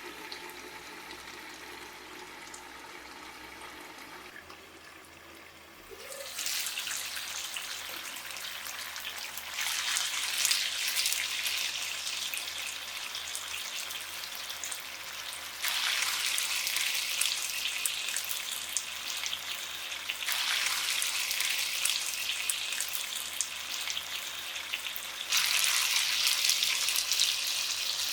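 Food sizzling and frying in a hot pan, a steady crackling hiss that starts about six seconds in and steps up and down in loudness several times. Faint music fades out before the sizzling begins.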